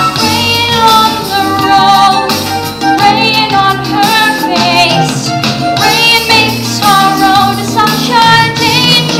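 Children singing a musical-theatre song with an instrumental accompaniment.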